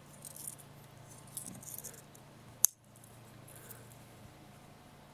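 Small metal keychain multitool being handled, with light metallic clinks and jingling and one sharp click about two and a half seconds in.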